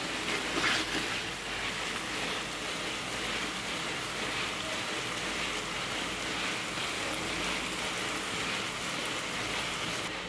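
Chopped capsicum frying in oil in a pan: a steady sizzle, briefly louder a little under a second in.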